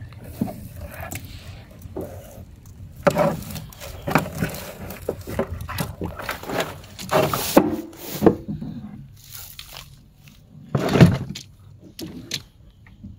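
Crab nets and green mesh bags being handled in a small boat: irregular rustling and scraping with a few knocks, the loudest burst about eleven seconds in.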